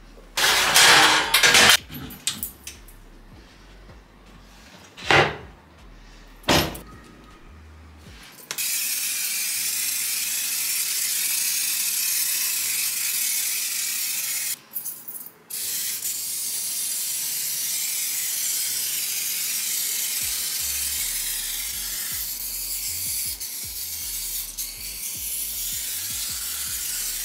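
Kitchen cleaning: a few short spray-like bursts, then a steady hiss that breaks off briefly about halfway through and carries on.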